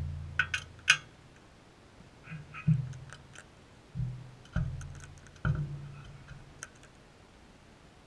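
Sulphur-crested cockatoo's beak knocking and scraping on its feeding dish. There are four heavy knocks, each leaving a low ringing hum that fades over about a second, with lighter clicks and taps between them.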